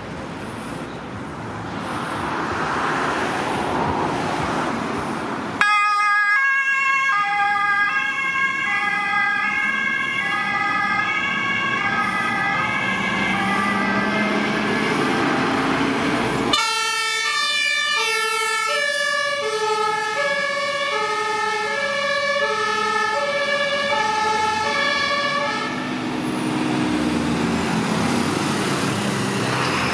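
Fire engine's two-tone horn (German Martinshorn) alternating steadily between two pitches, starting about six seconds in and switching abruptly to a lower pair of tones about halfway through. Before the horn and near the end, the Mercedes-Benz fire engine's diesel engine is heard revving as it pulls away.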